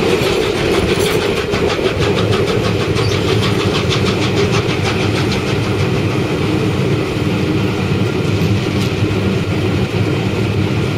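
Steam-hauled train running on the rails: a loud, steady rumble with a rapid, even beat through the middle.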